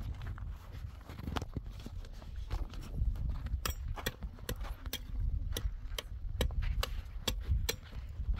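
Sharp clicks and knocks of concrete blocks and rubble being handled, coming about two a second from a few seconds in, over a steady low rumble.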